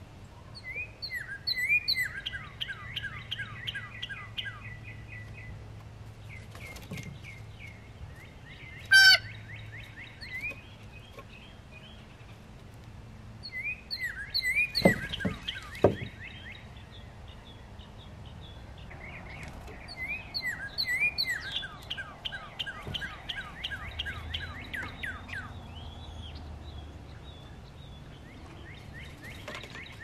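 Backyard songbirds singing: several bursts, each a few seconds long, of quick repeated downslurred whistled notes. A brief loud harsh call comes about a third of the way in, and two sharp knocks come about halfway through.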